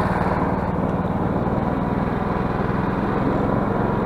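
Snowmobile engine running steadily while riding across snow.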